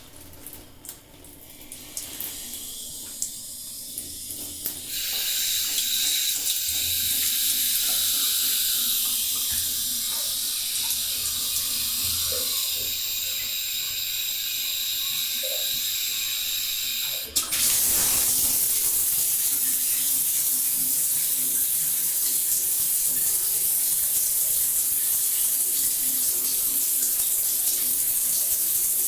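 Water running from a bathroom tap in a bathtub: at first a weak flow with a few clicks, opened up to a steady stream about five seconds in. About seventeen seconds in it switches suddenly to a louder, hissier, even spray.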